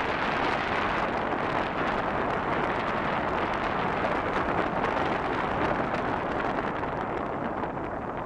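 Steady rushing road noise of a car driving on asphalt, tyre and wind noise together, easing off near the end.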